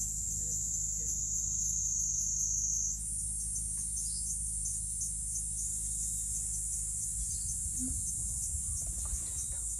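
Steady high-pitched chorus of insects trilling. One of the overlapping trills stops about three seconds in while the rest carries on.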